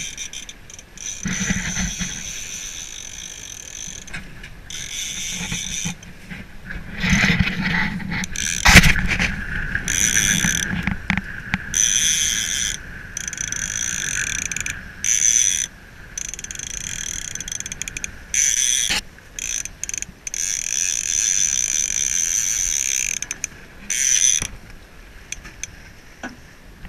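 Multiplier boat-fishing reel being cranked in short spells against a heavy halibut, its gears whirring in runs of a second or two with pauses between. A sharp knock about nine seconds in.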